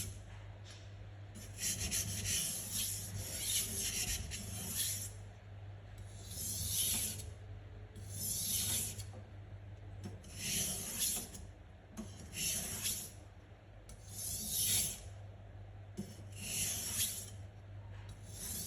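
Sugimoto kitchen knife being sharpened on a whetstone, steel scraping across the wet stone. A run of quick strokes comes in the first few seconds, then single slower strokes about every two seconds.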